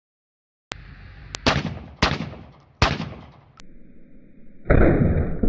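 Beretta A400 Xplor Action semi-automatic shotgun fired three times in quick succession, the shots well under a second apart, each followed by a short echoing tail. A louder, longer blast starts near the end.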